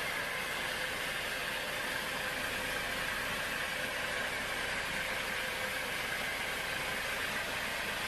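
Band sawmill running and cutting lengthwise through a teak log: a steady, even whirring hiss of the blade in the wood, with the machine's drive running under it.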